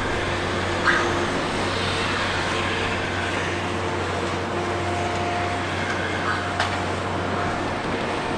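Long-reach demolition excavator running steadily, its engine and hydraulics giving a continuous hum with faint steady whining tones. Two sharp knocks of concrete or steel being broken come about a second in and again some five and a half seconds later.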